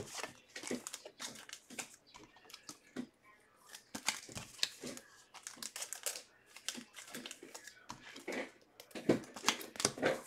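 Trading cards and their plastic sleeves or packaging being handled at a table: irregular crinkling, rustling and light clicks.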